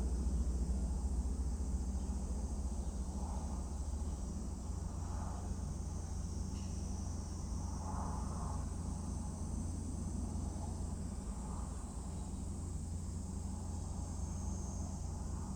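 Insects, crickets by the sound of it, chirring steadily in a high band over a low steady rumble, with a few faint soft sounds now and then.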